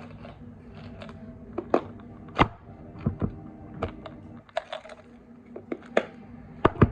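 Irregular sharp clicks, taps and knocks of small objects being handled, over a faint steady low hum.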